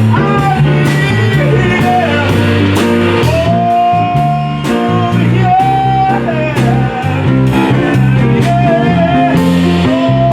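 Instrumental break of a bluesy band piece: drum kit keeping a steady beat, bass guitar walking underneath, and a lead instrument holding long notes with bends and slides.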